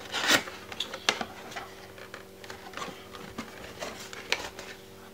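A cardboard box being opened by hand, its flaps and the paper inside handled: scattered irregular clicks, taps and rustles.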